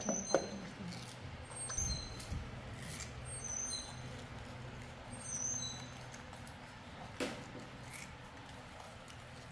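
Young macaques eating soft fruit pieces by hand: faint chewing and handling clicks over a low steady hum, with short, faint, high-pitched chirps every second or two.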